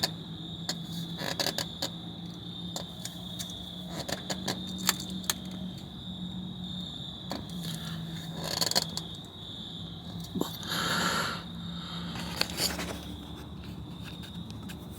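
Scattered metallic clicks and scrapes of hand tools and parts being handled under a car during an oil change, with a longer scrape about ten seconds in, over a steady low hum.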